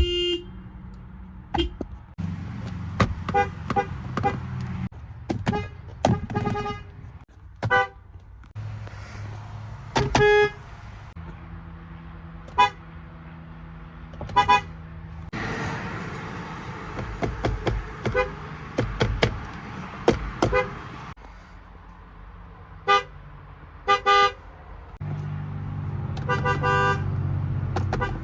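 Car horns from one car after another, more than a dozen short honks and toots of differing pitch in quick succession. Car engines run between the honks.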